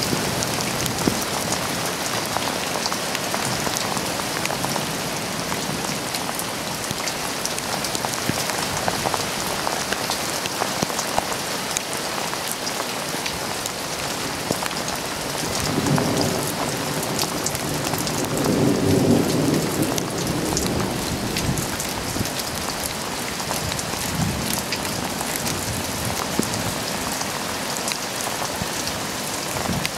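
Steady rain falling, pattering with many small drops. Low rumbles of thunder swell up a little past the middle.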